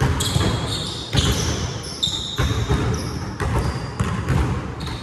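Basketball game play on an indoor court: the ball bouncing in repeated thuds, with short high-pitched squeaks scattered through.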